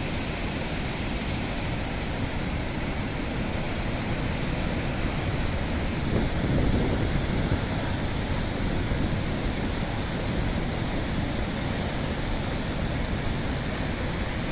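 A mountain stream in flash flood, a muddy torrent carrying boulders and debris, rushing steadily, swelling slightly about six seconds in.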